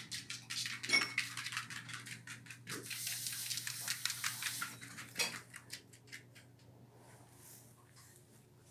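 A small dog's claws clicking on a vinyl floor as it trots about, rapid and irregular, with a stretch of rustling about three seconds in. The clicking dies away after about five seconds.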